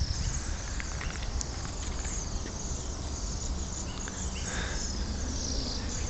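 A large flock of small winter songbirds calling together from the trees, a steady chorus of thin, high trills and twitters.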